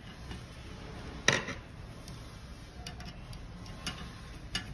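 Screwdriver and metal parts of a heater burner's ignition-needle bracket clicking as a screw is worked: one sharp click about a second in, then a few lighter ticks.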